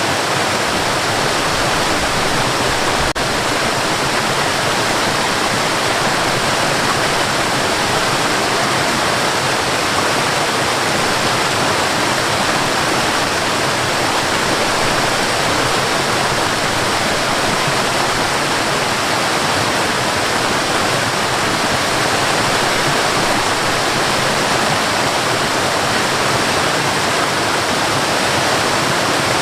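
Waterfall pouring into a forest river: a constant, even rush of falling water.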